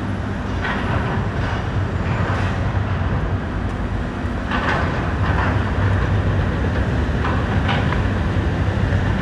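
Steady low engine hum over a rushing background noise, holding even throughout.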